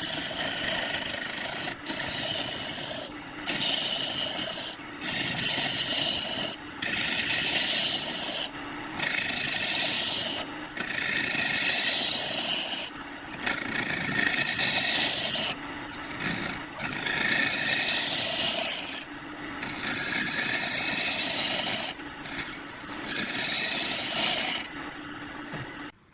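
Wood turning on a lathe: a turning tool cuts and scrapes the spinning wood in repeated passes of a second or two, with short breaks between them.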